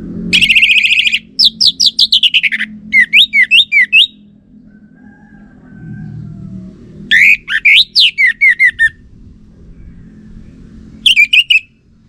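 Orange-headed thrush singing loud song phrases, used as a lure to draw an answering song from males: a buzzy trill, then a run of slurred whistles sliding down in pitch and quick rising-and-falling notes. A second phrase comes about seven seconds in, and a short burst near the end.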